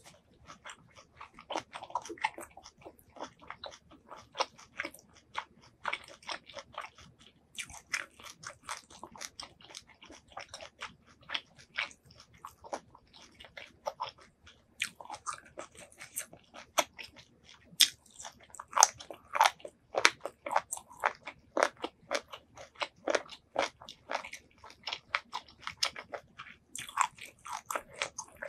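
Close-miked eating sounds of blanched squid in a spicy Thai seafood salad: steady chewing with many sharp, crunchy bites and wet mouth clicks, loudest a little past the middle.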